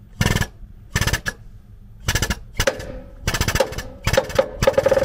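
Foot-operated air-hydraulic pump running in short bursts of rapid chattering as its pedal is pressed, with the bursts coming longer and closer together towards the end. It is driving a hydraulic cylinder that builds up force to press out a Mercedes Sprinter's lower ball joint.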